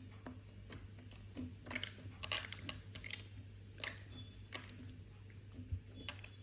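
Slime being pressed and worked by hand, giving faint, irregular clicks and crackles as small air bubbles in it pop.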